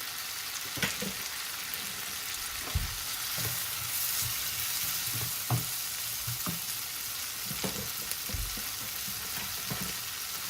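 Mixed vegetables frying and sizzling in a wok with a steady hiss, stirred with a utensil that knocks and scrapes against the pan at irregular intervals.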